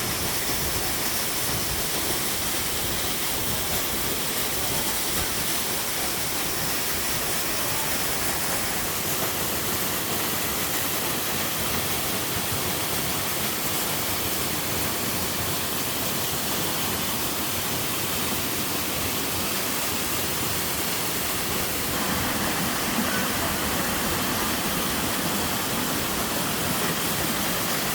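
Waterfall pouring into its pool, a steady rushing of water. About three-quarters of the way through it becomes a little louder and fuller.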